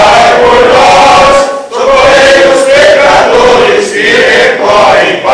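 A congregation of mostly men's voices singing a Portuguese Catholic litany hymn to the Virgin Mary together, with a short break for breath a little under two seconds in.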